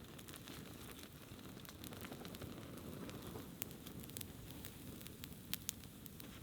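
Small campfire crackling: scattered sharp pops over a steady low rush, with two louder pops about five and a half seconds in.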